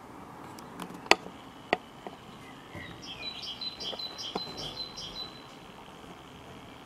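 Two sharp clicks about half a second apart, then a small bird singing a short run of about eight repeated high chirps.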